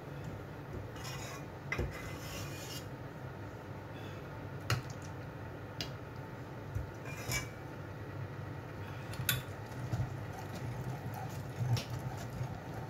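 Hand-cranked stainless-steel food mill pressing fresh tomatoes: the blade grinding over the sieve, with a handful of sharp metal clinks and scrapes from the mill and a ladle against the bowl.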